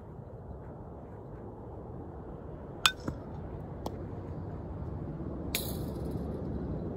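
Metal softball bat striking a ball with a sharp, ringing ping about three seconds in, followed by two lighter clicks, then another sharp crack near the end, over a low steady rumble.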